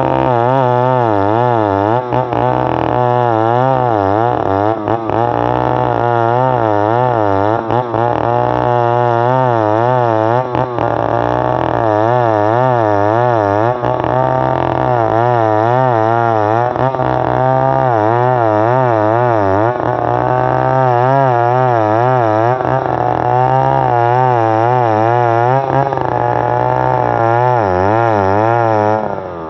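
Stihl 070 two-stroke chainsaw running under load while ripping a log lengthwise into boards. Its pitch wavers up and down over and over, and the sound drops off suddenly at the very end.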